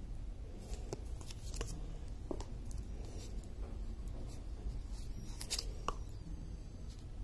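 Hands handling a paper instruction leaflet and an earbud charging case still wrapped in plastic film: a scatter of short rustles, crinkles and clicks, starting about half a second in, over a low steady hum.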